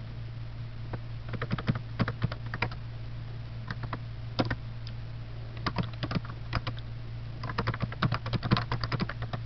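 Typing on a computer keyboard: irregular bursts of keystrokes with short pauses between them, over a steady low hum.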